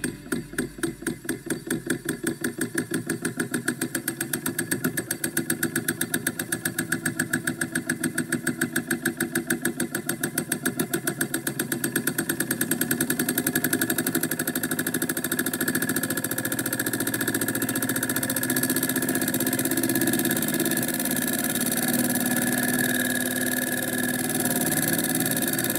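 Homemade solenoid motor running: its armature clicks in a fast, even rhythm that speeds up until it blends into a steady buzz about halfway through. The speed changes as the threaded contact screw of its mechanical pulse-width adjustment is turned.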